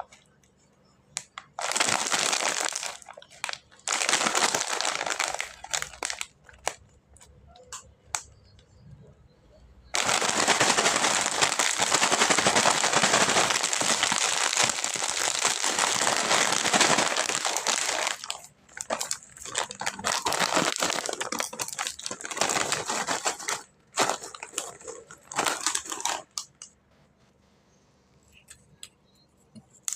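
Plastic snack packaging crinkling as it is handled, in several bursts with one long stretch in the middle.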